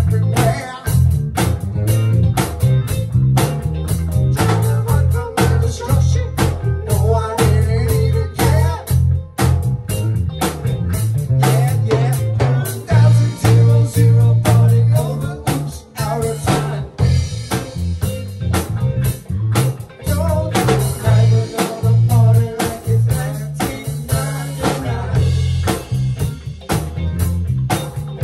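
Small rock band playing live: electric guitar, electric bass guitar and a drum kit, with a steady driving bass line and regular drum beats.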